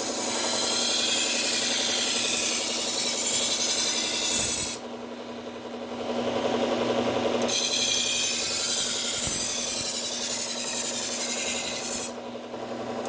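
Knife blade ground on a Cubitron P120 abrasive belt on a Buck Tool slow-speed belt grinder, raising a burr on a dull edge: a steady hissing grind in two long passes, the first nearly five seconds long and the second starting about seven and a half seconds in. Between the passes the grinder keeps running more quietly.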